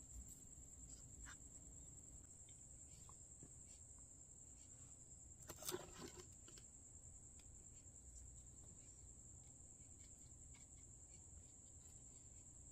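Near silence with a faint, steady high-pitched whine throughout. A brief rustle and clatter of hand-handling comes a little before halfway.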